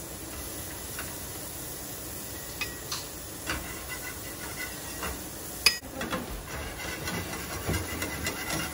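Cheese frying under a corn tortilla in a hot nonstick pan, sizzling steadily as it browns against the pan. A metal spatula clicks against the pan a few times, loudest a little past the middle.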